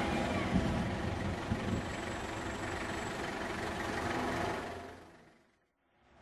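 A bus driving past, its engine and tyre noise loudest at first and easing as it moves away. The sound then fades out about five seconds in.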